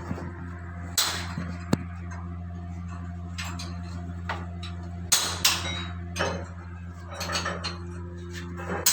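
Metal tools and engine parts clinking and knocking, several sharp strikes spread unevenly over a few seconds, over a steady low machinery hum.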